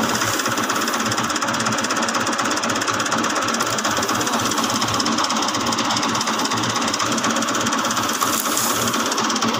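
Tractor-PTO-driven wheat thresher running steadily at working speed while wheat sheaves are fed in, its drum and belts together with the tractor's diesel engine making a loud, even mechanical rattle and whir.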